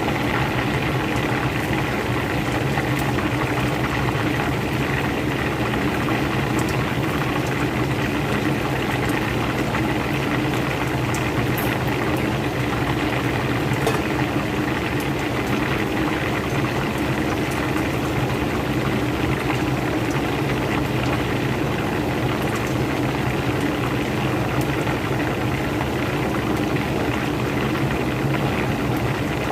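Whole chicken deep-frying in hot oil, bubbling steadily, over a steady low hum.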